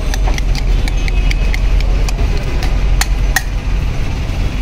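Light metallic clinks of a spoon striking a metal mixing bowl, irregular and several a second, with two sharper clinks about three seconds in. Underneath is a steady low rumble of street traffic.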